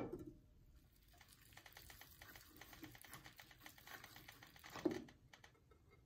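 A wax candle knocks against metal, then a fast run of faint clicks and crackles as its end is pressed onto the bottom of a heated aluminium pot to melt off leftover wax. There is a second knock a little before the end.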